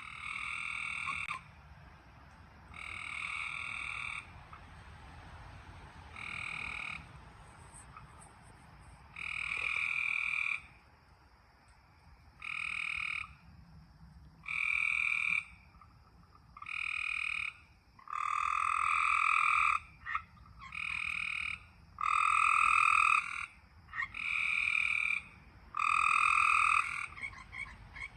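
Frog calling: a trilled call about a second long, repeated roughly every two seconds and growing louder toward the end.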